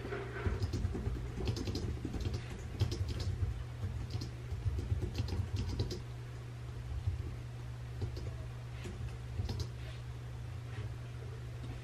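Typing on a computer keyboard: a fast run of key clicks for about the first six seconds, then a few scattered keystrokes, over a steady low hum.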